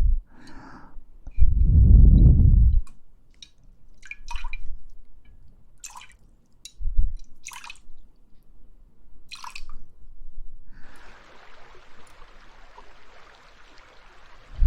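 Close-miked ASMR trigger sounds with water: a heavy low thump about two seconds in, scattered sharp clicks and drips, then a steady hiss of liquid from about eleven seconds in.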